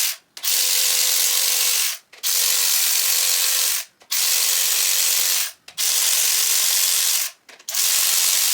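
Power ratchet whirring as it runs bolts out of an LS1 engine, in about five spells of a second and a half each with short breaks between. It is loud.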